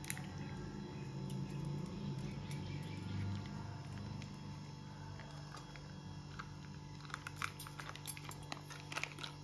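Faint handling sounds of squeezing curd from a plastic packet into a strainer, over a steady low hum; a run of small crinkling clicks from the plastic packet comes near the end.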